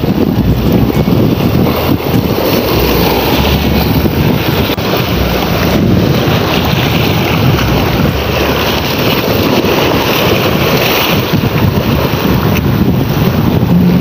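Wind buffeting the microphone, mixed with surf washing and breaking against shoreline rocks, loud and steady throughout.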